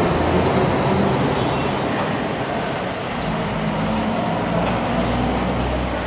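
Steady low mechanical rumble with a faint hum underneath, of the kind made by distant traffic or machinery.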